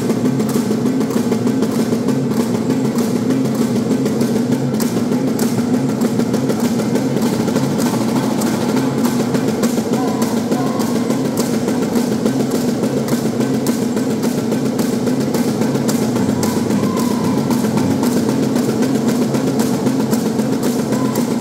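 Live Murut dance music: a gong ensemble's steady held tones under a fast, unbroken run of sharp clacks, as from the bamboo poles clapped together for the Magunatip bamboo dance.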